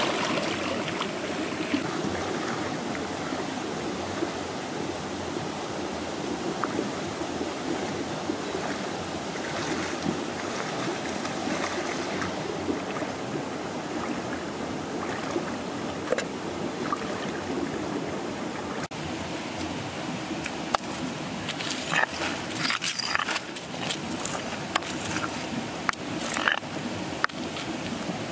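Shallow rocky stream running steadily, with a string of sharp knocks and clicks in the last several seconds as stones are set down on rock.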